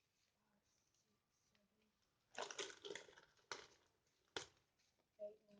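Crunchy spicy corn snacks being bitten and chewed: a few short, sharp crunches after a near-silent start, with one sharper crack near the end.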